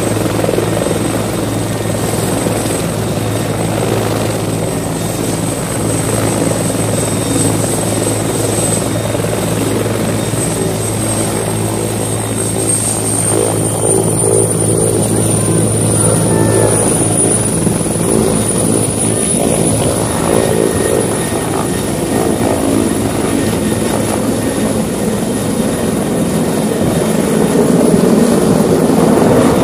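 Helicopter running on the ground, its steady engine and rotor note joined by a high turbine whine that rises in pitch about halfway through as it spools up. Near the end the rotor noise grows louder as it lifts off and passes low overhead.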